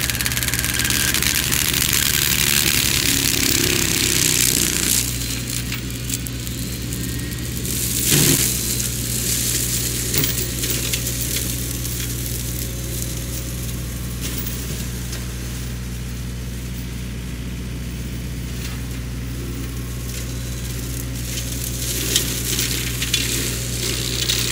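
Sany SY50U mini excavator's diesel engine running steadily while its hydraulic Mongo flail mulcher spins, chewing through brush and wood for the first few seconds. A single sharp crack comes about eight seconds in.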